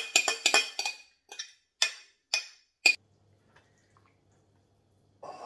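Spoon clinking and knocking against a white bowl as grated-potato mixture is scraped out of it into another bowl: a quick run of sharp knocks for about three seconds, then faint stirring.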